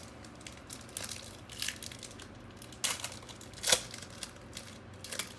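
Wrapper of a 2016 Donruss Optic football card pack crinkling and tearing as it is ripped open, in several sharp crackles, the loudest a little under four seconds in.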